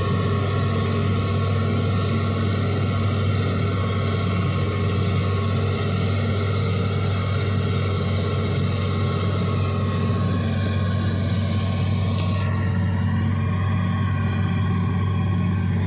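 Hitachi excavator's diesel engine running steadily, its tone dipping slightly about three-quarters of the way through.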